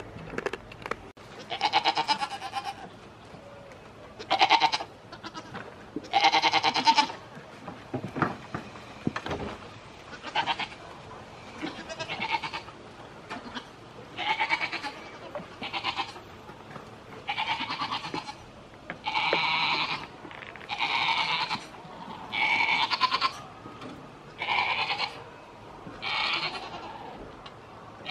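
Goats bleating over and over: about fourteen loud, quavering bleats, each under a second long, one every one to two seconds.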